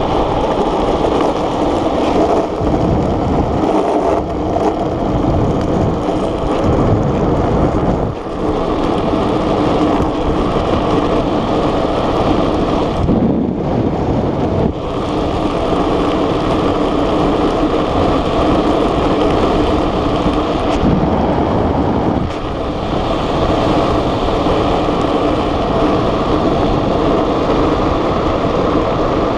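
Wind rushing over the microphone and tyres rolling on rough asphalt on an unpowered gravity speed trike descending at speed. The noise is steady and loud, easing briefly a few times.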